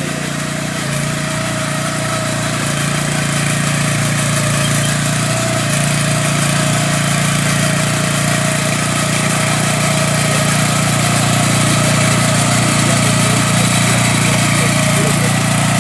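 A small engine running steadily, with a constant pitch and no change in speed.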